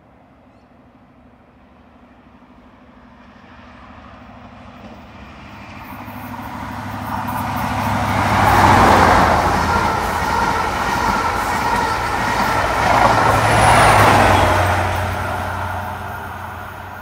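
CrossCountry HST running through at speed, with a Class 43 diesel power car at each end. It builds up as the train approaches and peaks as the leading power car passes about nine seconds in. A steady rumble follows as the coaches go by, then a second peak as the rear power car passes about five seconds later, and it fades as the train moves away.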